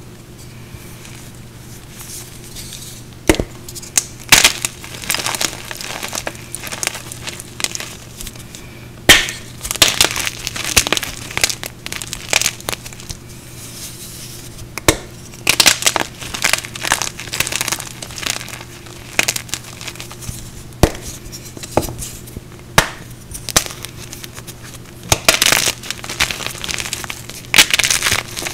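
Hands crushing and crumbling soaked white chalk-like blocks coated in green powder. Crisp crunching and crumbling comes in clusters, broken by sharp loud cracks as pieces snap, over a faint low steady hum.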